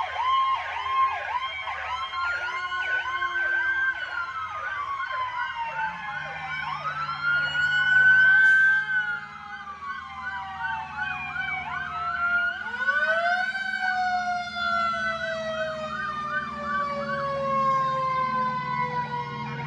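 Several police car and fire truck sirens sounding at once: fast yelping sirens overlap slower wails that rise and fall.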